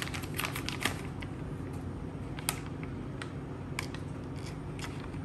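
Scattered light clicks and taps of kitchen items and a plastic package being handled on a countertop, the sharpest about halfway through, over a low steady hum.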